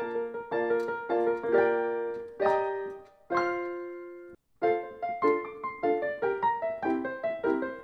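Background piano music: a light run of struck notes that settles on a held chord, breaks off for a moment about halfway through, then carries on with quick notes.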